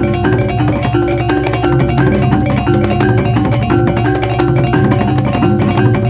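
Background music with tuned percussion struck in a fast, steady repeating pattern.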